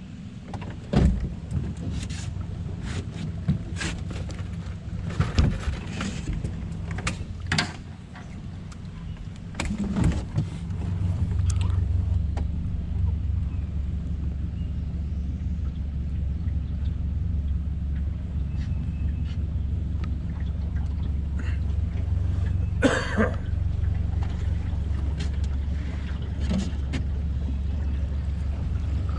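Low steady rumble aboard a small fishing boat, getting louder about eleven seconds in, with a run of sharp knocks and clatters of gear against the boat in the first ten seconds and another short clatter near the end.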